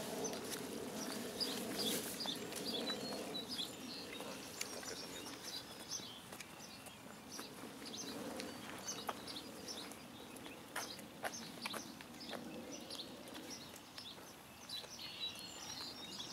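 Small birds chirping and calling in the background: many short, high chirps scattered throughout. A few light clicks stand out over them.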